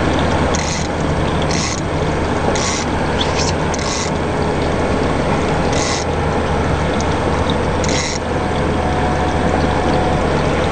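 Three 250 hp outboard motors running steadily with a low drone, while a fishing reel's clicker ratchets in about seven short bursts over the first eight seconds as line is pulled off the spool.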